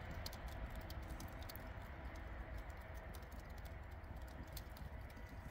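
Small cardboard fire crackling faintly, with scattered small ticks and pops over a low steady rumble.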